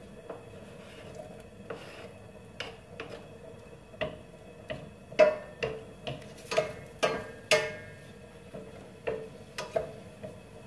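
Wooden spoon knocking and scraping against a stainless steel pan while stirring chopped garlic in oil: an irregular run of sharp clicks, each with a short metallic ring, busiest in the middle.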